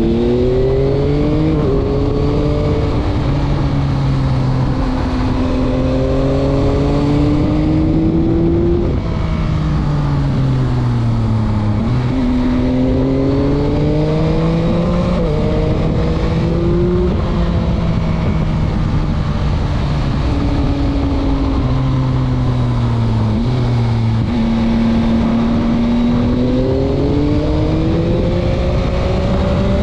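Yamaha MT-09's 890 cc three-cylinder engine pulling hard, its revs repeatedly rising and falling as it rides through a run of corners. The pitch drops sharply at several points.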